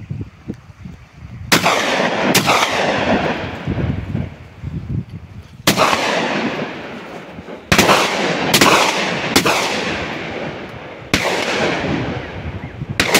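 Eight hunting gunshots in irregular succession, some in quick pairs about a second apart, each rolling away in a long echo.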